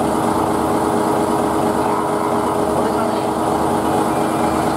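Fishing boat's 800-horsepower marine diesel engine running steadily, heard inside the engine room: an even, loud drone with a steady hum, loud enough to drown out a voice.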